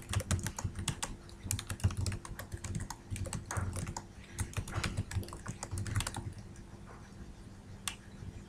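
Typing on a computer keyboard: a fast, uneven run of keystrokes that stops about six seconds in, with one more keystroke near the end.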